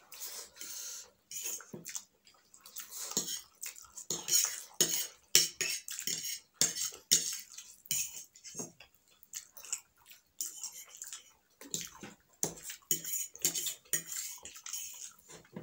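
Two people eating chow mein: forks clinking and scraping on plates in quick, irregular strokes, with noodles being slurped.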